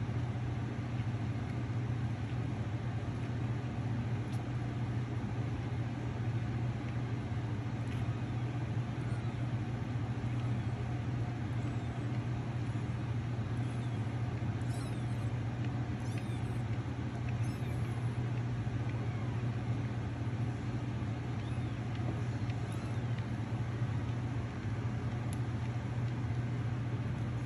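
A steady low hum with no change in level.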